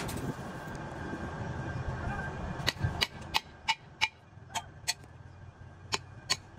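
A steel bar scraping moulding sand off a freshly cast iron truck brake drum during shake-out, with sand crumbling and sliding away. From about two and a half seconds in, the bar strikes the cast-iron drum about nine times, each a sharp clink that rings briefly.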